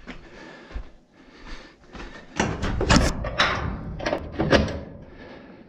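A burst of knocks, rattles and scrapes on metal, loudest and densest in the middle, of the kind made by handling a shed's sheet-metal door or siding.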